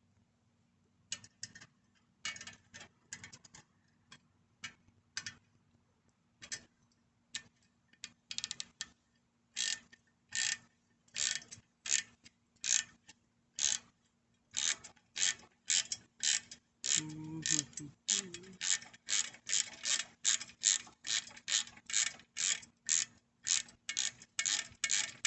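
Ratchet wrench clicking as it tightens the lock nut of a bicycle caliper brake. The clicks are scattered at first, then settle into a steady, louder run of about two to three a second.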